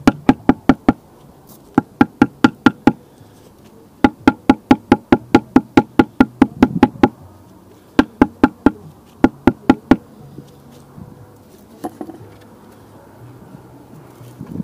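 Steel club hammer tapping the top of a masonry block to settle it into its mortar bed, in quick runs of blows about four to five a second with short pauses between runs, to bring the block plumb and level. The hammering stops about ten seconds in, leaving a few faint knocks.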